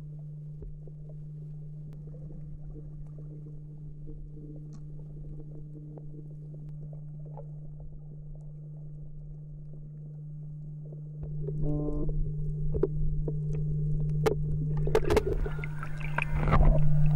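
Water around an underwater camera: a steady low hum with faint underwater noise, turning to louder rumbling about two-thirds through. Near the end come splashing and sloshing as the camera breaks the surface.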